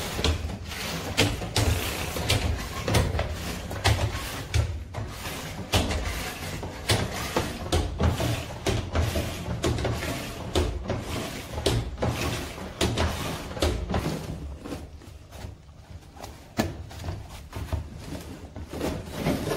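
Hand-operated lever pump on a windscreen washer fluid dispenser being worked stroke after stroke, a clunk about once a second, filling a plastic can with washer fluid.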